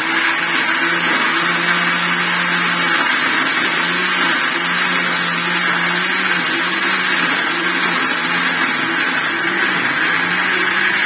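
National electric blender running steadily at speed, its blades grinding whole green chillies and water into a paste.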